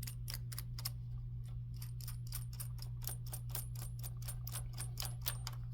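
Needle-nose pliers working the power button's retaining nut loose: a run of small, irregular metallic clicks, a few a second, over a steady low hum.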